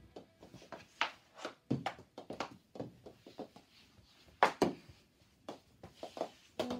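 Knee hockey on a hardwood floor: irregular taps and knocks of a mini hockey stick and ball on the wood, mixed with footfalls, in a small room. One knock about four and a half seconds in is the loudest.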